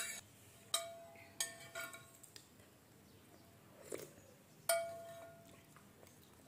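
Metal spoon and fork clinking against a glass bowl of noodles: about five sharp, ringing clinks, the strongest at the start and about three-quarters through. A softer eating sound comes around four seconds in as a spoonful reaches the mouth.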